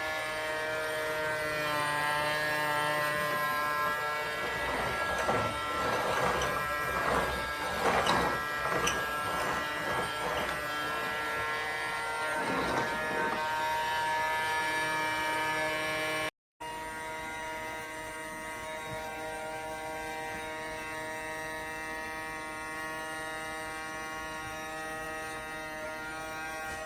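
Small electric motor of a toy cordless vacuum cleaner running with a steady buzzing whine, with a louder, noisy stretch in the middle. The sound breaks off for an instant about two-thirds of the way through, then the motor carries on steadily.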